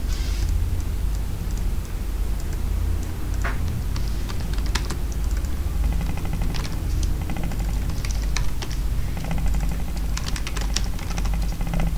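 Computer keyboard typing in quick runs of keystrokes with short pauses between, over a steady low hum.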